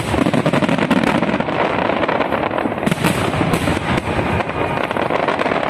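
Fireworks going off in a rapid, continuous crackle of many small bangs and pops.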